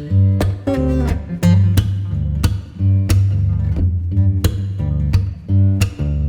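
Background music: plucked guitar in a steady rhythm over a bass line.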